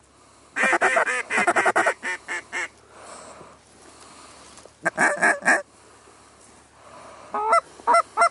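Goose honks and clucks in three quick, loud runs, the last a regular string of about four calls a second.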